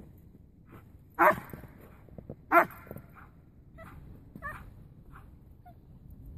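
Siberian husky barking in play: two loud, short barks about a second and a half apart, then a few softer yips.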